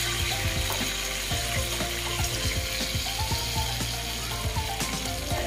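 Hot cooking oil and soy-marinade drippings sizzling in a frying pan just after the pork chops were fried in it, with soft background music of held notes underneath.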